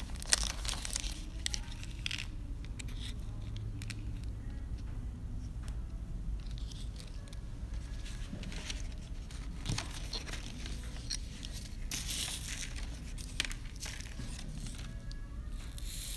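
Small plastic bead bags crinkling and rustling as they are opened and handled, with Swarovski crystal bicones tipped out of them onto a bead mat. Irregular crackles and small clicks, busiest near the end.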